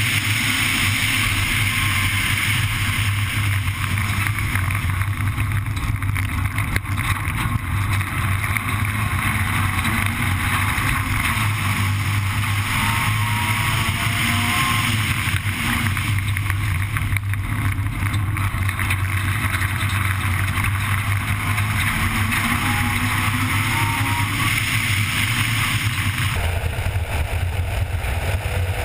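Honda Civic Type R N3 rally car at full pace on a gravel stage, its engine running hard and rising and falling in pitch with the throttle and gear changes, over a steady rush of tyre and gravel noise. The sound changes abruptly about two seconds before the end.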